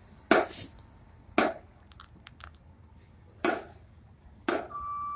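Scattered single strikes from a marching drumline after its cadence has stopped: about five sharp hits at irregular intervals, with a few faint clicks between them. A steady beep sounds near the end.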